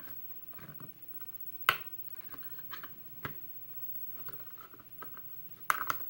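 Small metallic clicks and scrapes of a clip remover working at the retaining clip on the back of a Sargent lock's plug, with a few sharper clicks, the loudest about a second and a half in and a cluster near the end.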